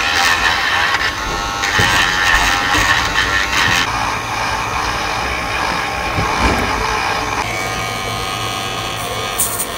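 A small AA-battery electric nail trimmer runs with a steady motor whine while its spinning metal grinding bit files down a fingernail. The motor tone changes pitch about three-quarters of the way through.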